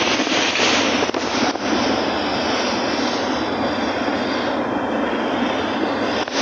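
Steady running noise of a train in motion, an even rushing noise with no clear rhythm.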